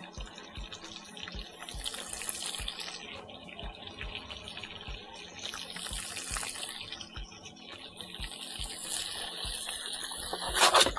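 Calamari rings frying in a pan of oil with garlic and onion, sizzling steadily, with a louder burst of hiss near the end.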